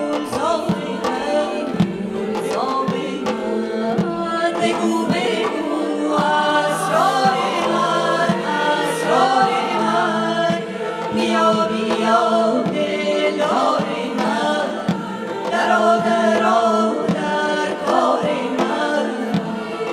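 Mixed choir and female soloists singing a Persian choral song, with light strikes on a daf frame drum keeping time under the voices.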